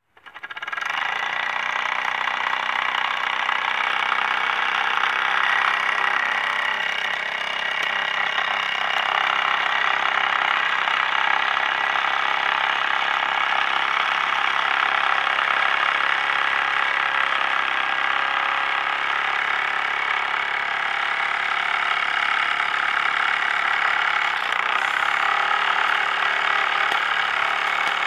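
Mamod MM1 toy steam engine, flicked into motion by its flywheel, running steadily with the rapid hissing chuff of exhaust steam from its single oscillating cylinder. It starts up about half a second in and then holds an even pace.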